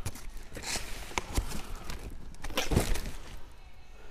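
Cardboard boxes being handled and shifted: scattered rustles and light knocks, with a louder thump just under three seconds in.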